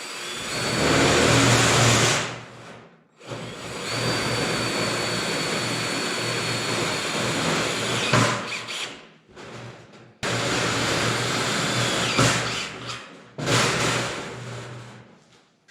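Power drill driving self-tapping screws into sheet metal: several runs of a few seconds each, the motor stopping and starting between screws.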